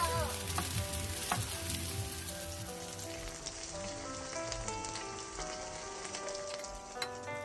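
Food sizzling as it fries in a hot pan, with two light clicks in the first second and a half, gradually getting quieter. Background music of held notes plays over it.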